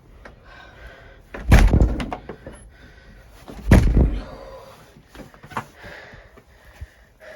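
Two heavy thumps about two seconds apart, with a few lighter knocks and rustles between them.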